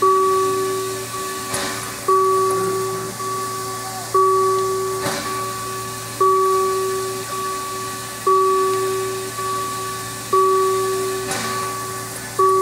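An electronic warning signal repeating about every two seconds; each ring starts sharply and fades. A narrow-gauge steam locomotive gives three short hisses of steam.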